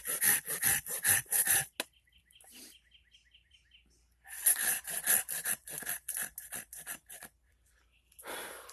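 A Silky pull saw with aggressive teeth cutting a stop cut into a cherry spoon blank in fast back-and-forth strokes, several a second. The sawing comes in two bouts. In the pause between them, about two seconds in, a small bird chirps a quick run of notes.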